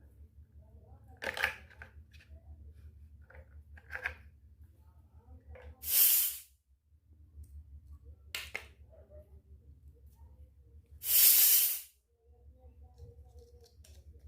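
Unboxing and handling of miniature toy kitchen pieces: a few light clicks and taps, and two short loud hissing, tearing noises, one about six seconds in and one about eleven seconds in, as of packaging being peeled or torn.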